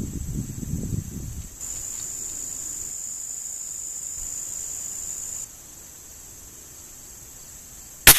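Insects chirring steadily and high-pitched for a few seconds, then a single sharp crack of a .22 rimfire target rifle shot near the end, the loudest sound, with a short echo.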